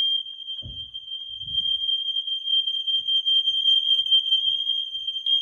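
Smoke alarm sounding one steady, continuous high-pitched tone, set off by aerosol test smoke.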